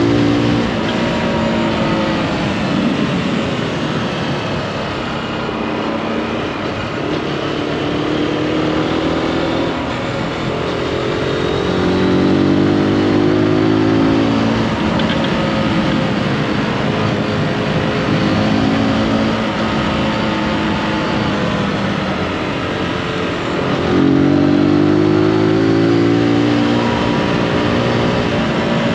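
Zontes G155 motorcycle's single-cylinder engine under way, rising in pitch as it accelerates several times and easing off between, loudest at the pulls about twelve seconds in and near the end. A steady rush of wind over the microphone runs underneath.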